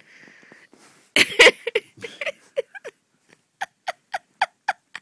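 A person lets out a sudden loud burst of breath about a second in, then laughs in a run of short, falling bursts, about four a second, as if from holding their breath.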